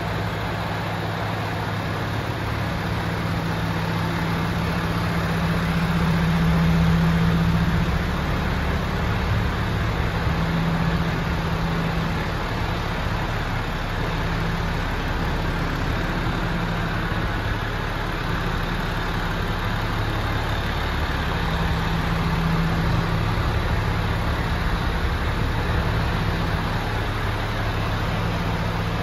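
MAN TGX 26.480 truck's six-cylinder diesel engine idling steadily, growing a little louder for a couple of seconds about six seconds in.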